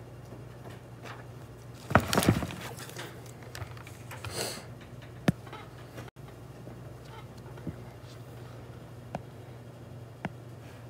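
Scattered knocks and clicks over a steady low hum: a quick cluster of loud knocks about two seconds in, a short rustle a little later, then a few single sharp clicks.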